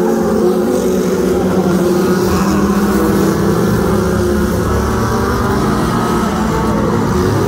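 Several stock car engines running together, their pitches rising and falling as the cars circle the track.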